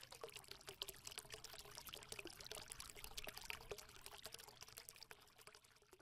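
Faint pouring and trickling of liquid, full of small splashes and ticks, thinning out near the end.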